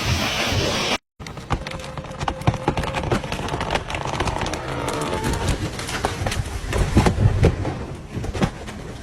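A steady saw-cutting noise stops abruptly about a second in. Then comes a run of sharp cracks, snaps and heavy thuds of wood breaking as a tree comes down, loudest about seven seconds in.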